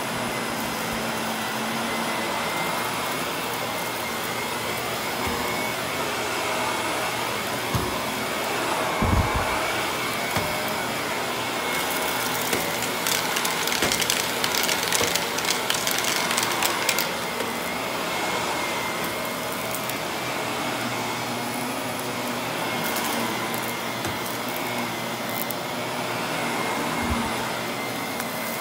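Vacuum cleaner running steadily over carpet, with a few seconds of dense crackling and rattling around the middle as debris is sucked up, and a few low thumps.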